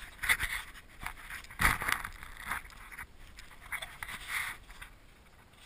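Scuffing and rustling in dry grass close to the microphone as an Alaskan Malamute moves, sniffs and paws around the camera, in uneven bursts. One heavier bump comes about a second and a half in.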